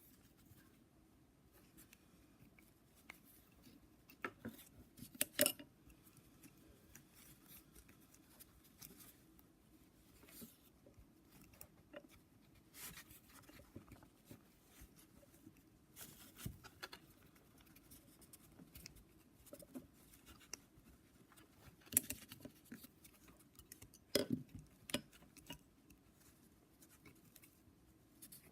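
Faint, scattered clicks and scrapes of small metal parts being handled as a wrist-pin retaining ring is worked into a piston's groove, with a few sharper clicks about 4 to 5 seconds in and again about 22 and 24 seconds in.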